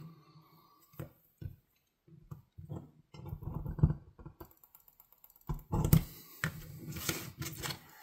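Small clicks and scratchy scraping from a pointed metal hand tool being pressed and worked against red plastic Swiss Army knife scales on a cutting mat, marking the position of a pin hole. It starts as sparse clicks and turns to longer, louder stretches of scraping and rubbing from about three seconds in.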